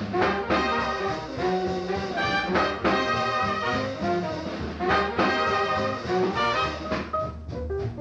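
Vintage swing-era jazz recording of a small band, with brass horns playing over a rhythm section. The ensemble thins out near the end.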